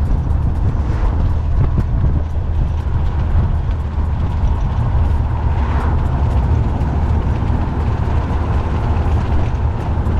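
BMW Z1 on the move, heard from the open cabin: steady road and engine rumble, with a spray of light ticks and rattles running through it.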